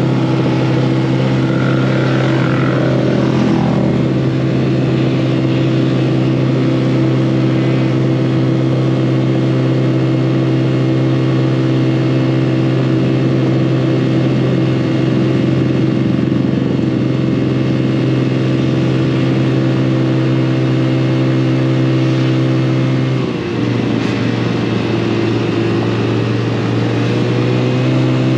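An engine running at a steady speed, dipping briefly in pitch and level about 23 seconds in before settling back.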